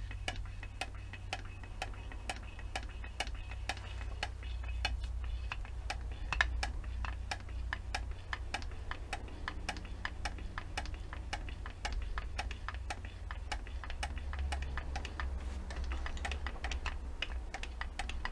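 Grease gun pumping grease through a hose into a seized brake caliper, clicking steadily at about three or four strokes a second, with a low steady hum underneath. The grease pressure is meant to force out the caliper pistons, which have not yet moved.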